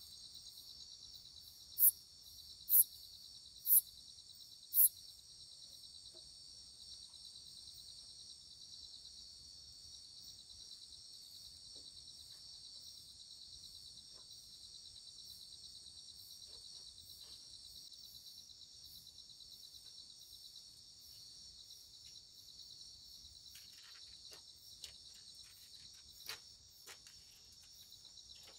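Night chorus of crickets and other insects, a steady high-pitched trill. Near the start there are four louder, sharp chirps about a second apart.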